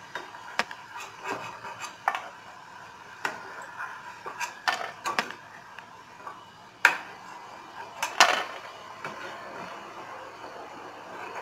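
A perforated steel slotted spoon scraping and clinking against an iron kadai as dried turkey berries (sundakkai vathal) are stirred and lifted out of frying oil. The clinks are irregular, with the two loudest about seven and eight seconds in.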